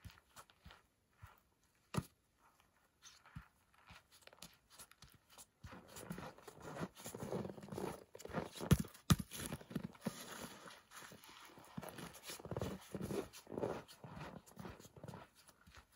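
Footsteps crunching in snow, sparse at first, then louder and closer in the middle as the walker comes near, with a few sharp clicks.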